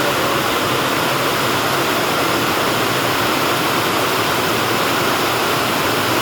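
Heavy rain: a steady, even rush of falling water.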